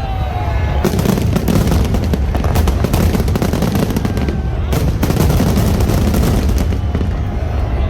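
Fireworks going off in a rapid, near-continuous string of bangs and crackles, with a brief let-up about a second in and again past the middle.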